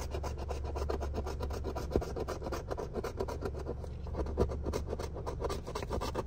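A coin scratching the coating off a scratch-off lottery ticket in rapid, rhythmic back-and-forth strokes, several a second.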